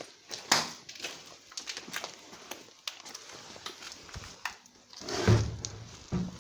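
Footsteps crunching over grit and broken debris, with irregular small cracks and clicks, and one louder thud about five seconds in.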